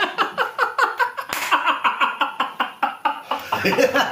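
A man laughing hard: a long, rhythmic run of quick 'ha-ha' pulses, several a second.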